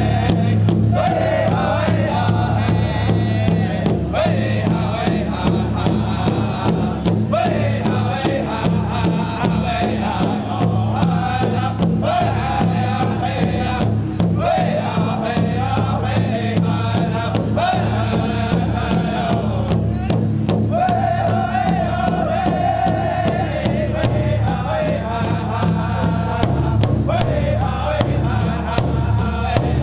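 Powwow drum group singing: several men's voices in high-pitched unison over steady beats on a large hide powwow drum.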